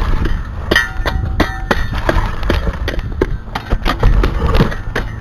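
Metal shovel knocking and clanging against rocky dirt, a string of sharp strikes, some with a brief metallic ring, over a low rumble.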